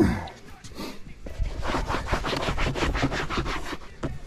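Rapid back-and-forth rubbing or scraping strokes, several a second, after a short loud sound at the very start.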